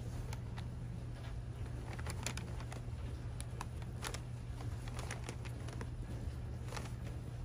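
Crumpled wrapping paper and tissue paper crinkling and rustling in short, irregular crackles as a cat noses and digs through it in a cardboard box, over a steady low hum.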